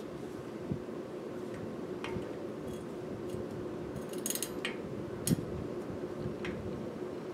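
Small metallic clicks and ticks of a hand driver turning bolts into a Shimano Ice-Tech disc brake rotor on a bicycle hub, with a cluster of clicks about four seconds in and one sharper click just after, over a steady low hum.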